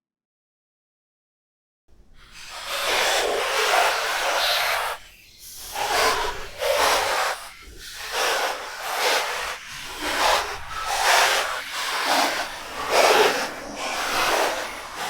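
Demonic creature sound effect: harsh, breathy hissing that starts about two seconds in and swells and fades in repeated pulses, roughly one a second.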